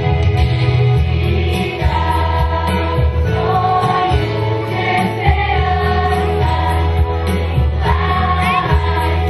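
Children's choir singing long held notes over a steady bass accompaniment.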